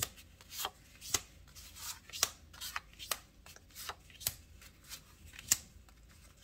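Cardstock journal cards being laid down one at a time onto a cutting mat: a run of sharp paper taps, about two a second, with faint rustling of the cards between them.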